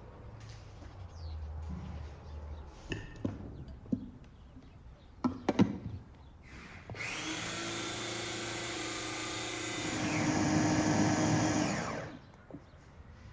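Electric bowl food chopper's motor running for about five seconds, blending leafy greens to a paste, getting louder partway through and then stopping abruptly. Before it starts there are a few knocks and a cluster of sharp clicks.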